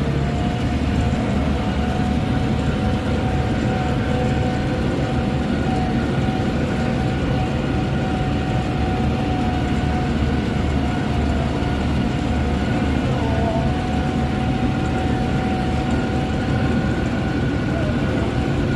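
Farm tractor engine running steadily under load while baling hay, with a steady whine held over the engine noise.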